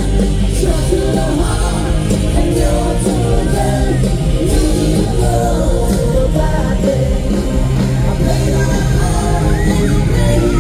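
Live band played loud through a stage PA: a singer over electric guitars, keyboard and a strong bass line.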